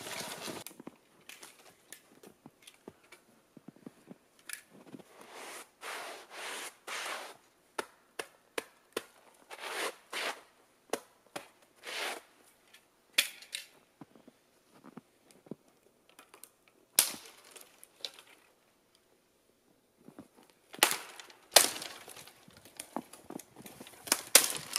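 Dry dead twigs and small branches being snapped by hand for kindling: a long run of sharp cracks at irregular intervals, the loudest snaps coming in the second half.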